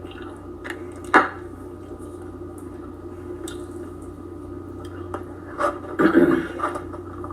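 A few light clicks and knocks, the loudest about a second in, over a steady low hum, with a short louder stretch about six seconds in.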